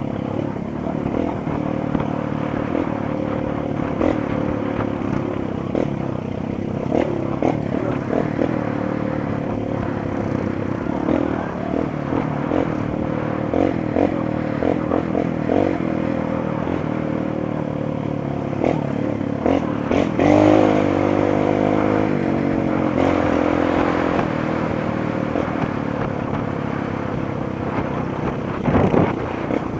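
Honda CRF230 trail bike's single-cylinder four-stroke engine running continuously while riding, with frequent clattering knocks from the bike. The engine revs up sharply about twenty seconds in.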